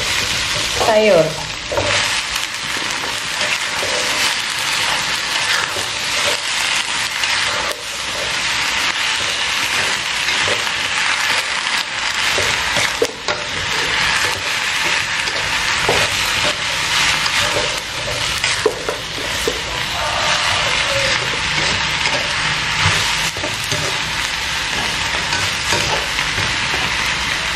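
Leafy greens and chopped vegetables sizzling as they are stir-fried in a wok, with a metal spatula scraping and knocking against the pan again and again.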